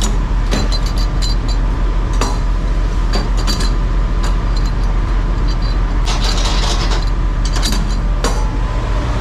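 JOST semi-trailer landing gear being cranked down by hand, the crank and gearbox giving an irregular run of light metallic clicks and clinks. Under it runs the steady low hum of the idling truck.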